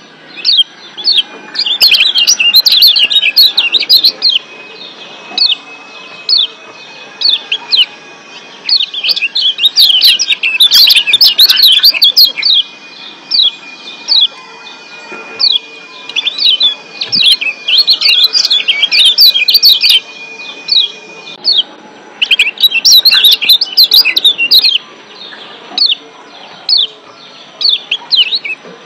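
Kecial kuning (Lombok yellow white-eye) giving rapid volleys of sharp, high 'ciak' chirps. Each volley is a quick run of short, downward-flicking notes lasting a few seconds, with brief pauses between volleys.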